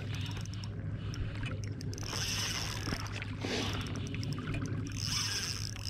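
Spinning reel cranked in short spells, with a whirring hiss three times, while a hooked largemouth bass is played on a bent rod, over a steady low hum.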